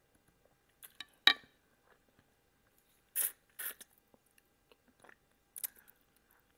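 Close-up mouth sounds of someone eating a salmon head straight from the plate. A sharp click comes about a second in, then short wet sucking and slurping noises a few seconds later.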